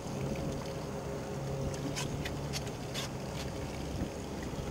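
Boat's outboard motor running steadily at low speed in reverse as the boat backs down on a hooked fish. About two to three and a half seconds in there are a handful of short hissing bursts.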